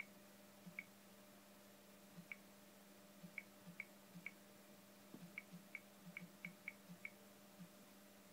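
Samsung Galaxy Tab on-screen keyboard giving a short high tick with each key press, about a dozen at an uneven typing pace, each with a soft knock of the fingertip on the glass. A faint steady low hum runs behind.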